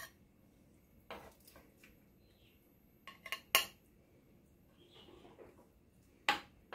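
Metal serving spoon and fork clinking against a ceramic plate and glass baking dish as roasted chicken and vegetables are served out: scattered sharp clinks, a quick cluster of three about three seconds in and another clink near the end, with a soft scrape of food sliding between them.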